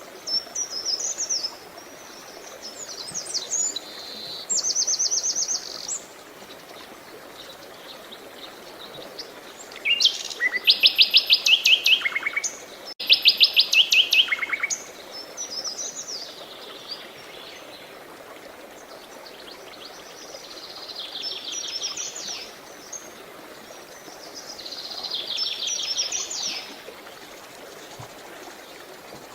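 Songbirds singing in short repeated phrases of rapid trills, some stepping down in pitch, with the loudest phrases in the middle, over a steady rush of flowing water.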